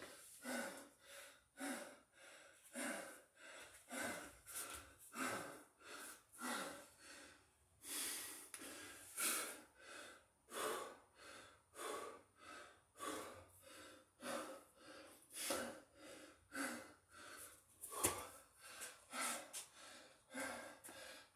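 A man breathing hard and fast from the exertion of six-count burpees, in quick, even, noisy breaths, about one and a half a second.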